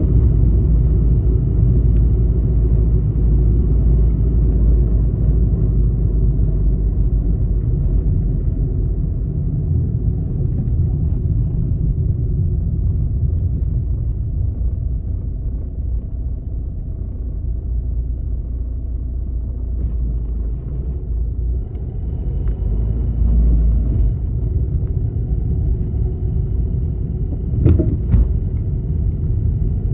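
Car driving along a city road: a steady low rumble of tyres and engine that eases off for a while around the middle, with a short sharp knock near the end.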